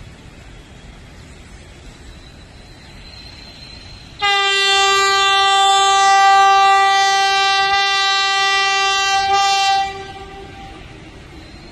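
Vande Bharat Express train set's horn sounding one long, steady blast of about five and a half seconds, starting about four seconds in and cutting off abruptly, over the quieter running noise of the approaching train.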